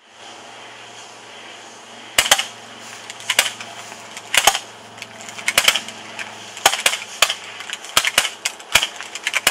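A dozen or so sharp, irregularly spaced clicks, beginning about two seconds in, over a steady background hiss and low hum.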